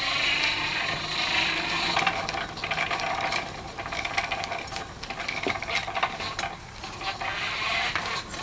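Hand-cranked forge blower whirring, its gears clicking and rattling; the whir is steady for about two seconds, then broken up by irregular clicks. These are new noises that the owner wonders may come from a stick shoved into the blower.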